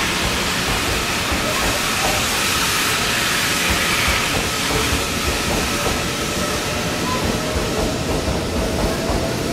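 JR East E001 series 'Train Suite Shiki-shima' cruise train running past along a station platform: a steady noise of wheels on rails and running gear.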